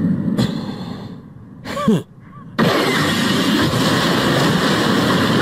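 Anime fight sound effects. A rushing noise fades down and a short falling pitched sound comes near two seconds. Then a sudden loud, sustained blast of rushing noise hits as the ground is blown apart.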